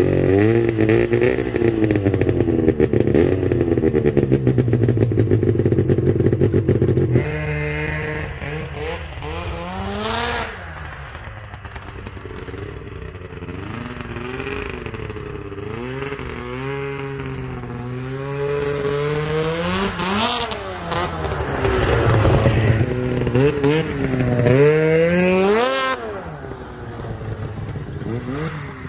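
Yamaha snowmobile engine revving up and down, loud and close for the first seven seconds. After that it is farther off, its pitch rising and falling with the throttle as the sled rides around, and it grows louder again as the sled comes back near the end.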